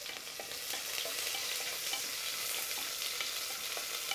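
Sliced onions sizzling steadily in hot ghee and oil in an aluminium pressure cooker, stirred with a wooden spatula that makes light scrapes and taps against the pan.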